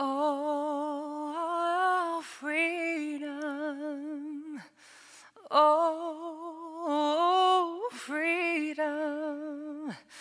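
A woman's solo voice singing a wordless, unaccompanied melody with wide vibrato, in phrases broken by short breaths, the longest just before the halfway point.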